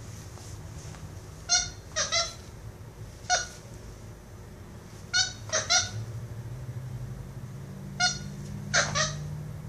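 Capuchin monkey giving short, high-pitched squeaking calls, about ten in all, some in quick pairs and triples.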